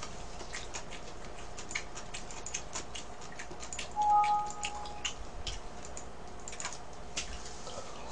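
Light, irregular clicking of computer keyboard keys being typed on, with a short steady tone at two pitches about four seconds in.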